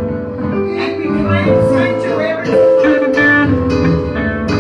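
Gospel music from a church band, with guitar prominent over a steady bass.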